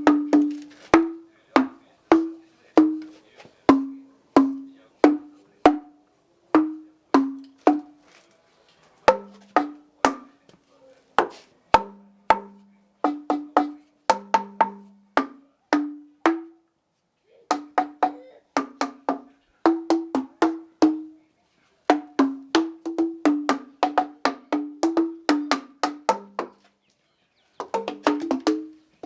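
Old oak beams, about two hundred years old, struck with a wooden mallet like giant xylophone bars. Each knock rings with a short pitched tone, a couple of strikes a second, at two or three different pitches, with a short pause twice.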